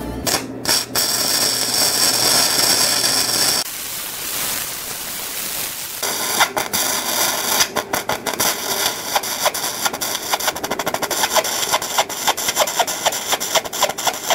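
Arc of a Seibi Eagle EG-M100Li battery-powered flux-core welder welding at full voltage: a steady frying hiss, quieter for a couple of seconds in the middle, then an irregular crackling and popping. The crackle comes as the wire feed turns uneven and the arc stops running steadily, with the battery welder close to overheating.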